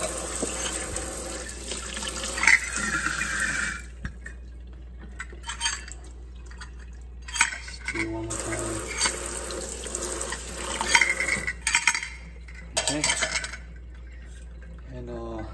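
Kitchen tap running into a stainless steel sink while a titanium French press pot and its stainless steel filter are rinsed under it. The water cuts off about four seconds in and runs again for a few seconds in the middle. In between come scattered clinks and knocks of the metal filter and pot.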